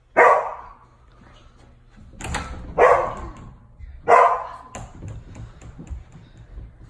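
A dog barking three times: short, loud barks, the second about two and a half seconds after the first and the third a second and a half later.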